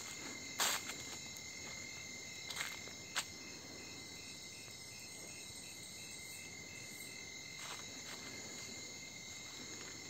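Night crickets and other insects trilling in steady high-pitched tones, with a fainter pulsing call in the middle. A few scuffing footsteps on a dirt track, the loudest under a second in.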